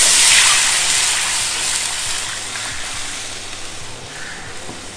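Rasam liquid poured into a pan of hot oil with spluttering mustard seeds: a sudden loud hiss and sizzle as the water hits the oil, mixed with the splash of pouring, then fading steadily as the pan cools.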